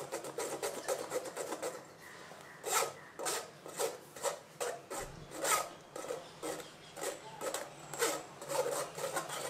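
Grape-and-apple juice pulp being worked through a strainer: quick repeated scraping, rubbing strokes, about three a second, with a short lull about two seconds in.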